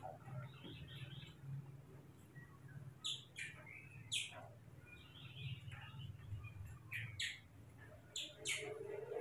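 Short, high-pitched chirps, each falling quickly in pitch, mostly in quick pairs: a pair about three seconds in, a single one a second later, and two more pairs near the end. Softer chirping runs between them over a low steady hum.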